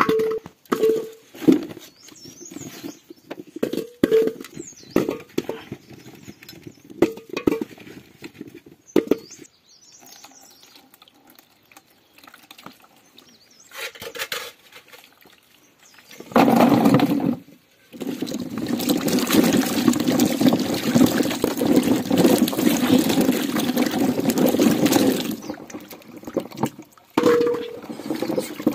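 Potatoes being washed by hand in water, with scattered knocks and splashes. About halfway through, water pours and splashes loudly for several seconds.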